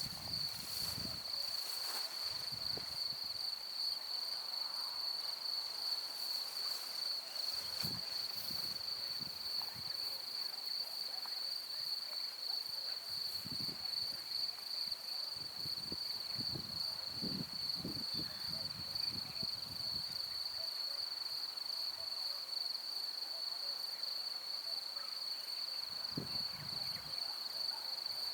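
Crickets chirring steadily in one continuous high-pitched, faintly pulsing trill. Wind gusts on the microphone come and go as low rumbles, most around the middle and near the end.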